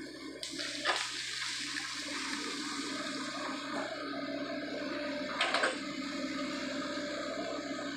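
Sany SY55C mini excavator's diesel engine running steadily under a rushing, watery noise as it works in waterlogged mud. There is a sharp knock about a second in and a louder one about five and a half seconds in.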